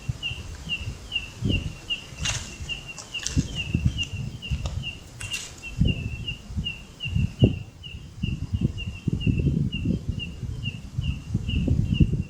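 A small creature's short, high chirp repeated steadily about two to three times a second, over irregular low rumbling and a few brief rustling clicks.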